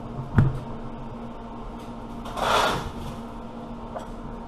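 A rack of raw pork back ribs thuds once onto a wooden cutting board about half a second in, then a paper towel rustles briefly near the middle, during membrane removal from the back of the ribs.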